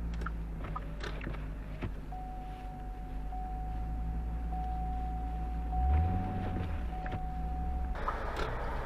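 Low steady rumble of motor traffic, with a single steady high-pitched tone held from about two seconds in until near the end. Near the end a louder hissing noise rises.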